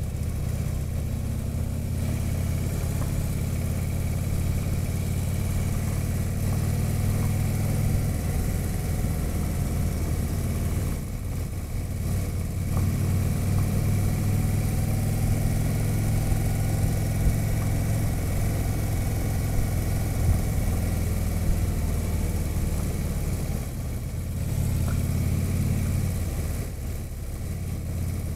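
A touring motorcycle's engine running steadily on the move, heard from the rider's seat with wind rush over the fairing. The engine note dips briefly a few times as the throttle eases.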